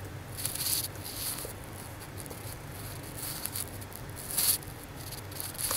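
Scattered soft keystrokes on a computer keyboard as a word is typed, a few short clicks spread over the first few seconds, over a faint steady low hum.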